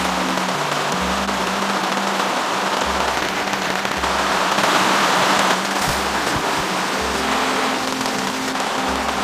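Steady rain falling, an even hiss that swells a little about five seconds in, with soft background music underneath.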